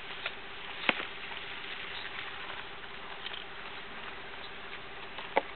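Sharp knocks of tortoise shell on shell from two young Greek and Moorish tortoises courting. There is a light knock at the start, a loud one about a second in, and another loud one near the end, over a steady faint hiss and low hum.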